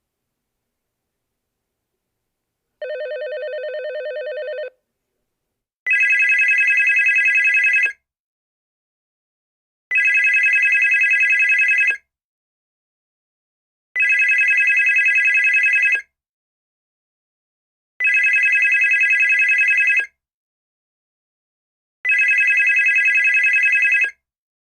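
Telephones ringing: one short, lower-pitched ring about three seconds in. Then a different, louder phone rings with a fast trill five times, each ring about two seconds long with two-second pauses between.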